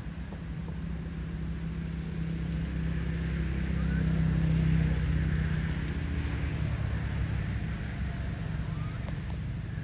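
Low engine hum of a motor vehicle passing. It grows louder to a peak about halfway through, then fades.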